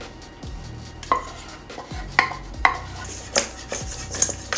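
Chicken wings being shaken and tossed in a covered stainless steel mixing bowl: a series of metallic knocks and clangs, some leaving the bowl ringing briefly, coming quicker and closer together near the end.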